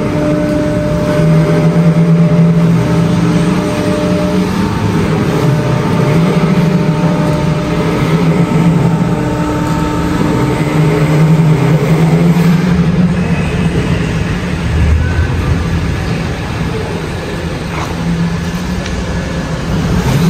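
A vehicle engine running, its pitch and level shifting every few seconds.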